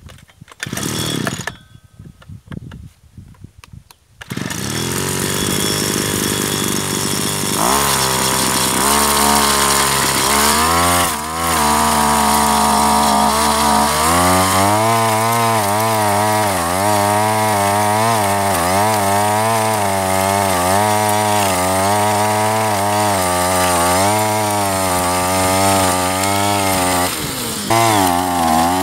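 Small two-stroke engine on a homemade grinder-head trencher starting after about four seconds of pulling, idling, then revved up. From about halfway the engine runs fast under load, its pitch wavering up and down as the spiked disc digs a trench in soil.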